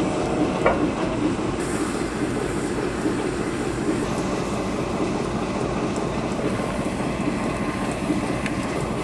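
Steam locomotive noise at close range: a steady, rough hiss and rumble, with a short thin metallic squeal just under a second in.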